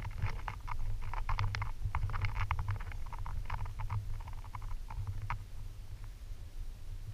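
Irregular light scratching and clicking, stopping about five seconds in: sea turtle hatchlings' flippers scrabbling against a collapsible plastic bucket. A steady low rumble runs underneath.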